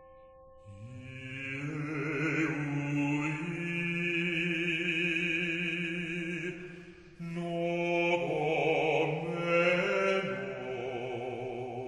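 Chant-like singing: long held notes with a wavering vibrato in two long phrases, split by a short break about seven seconds in.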